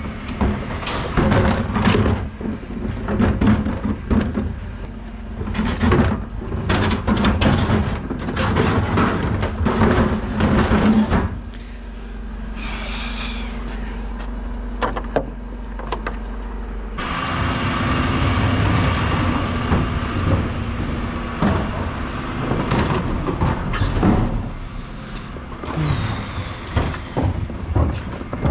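Plastic wheelie bins being wheeled over tarmac and paving, their wheels and lids rattling in an irregular clatter. About eleven seconds in the clatter gives way for several seconds to a steadier low engine hum, then the rattling resumes.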